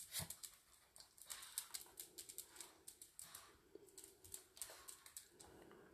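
Faint, irregular clicking of small dogs' toenails on a ceramic tile floor as they move about.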